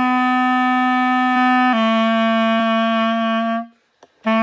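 Clarinet playing the slow ending phrase of a beginner tune: a long held D, then a long C a step lower, then a short gap and the start of the next note just before the end.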